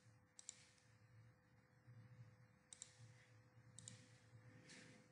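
Faint computer mouse button clicks, mostly quick press-and-release pairs, three or four times over a few seconds, over a faint steady hum.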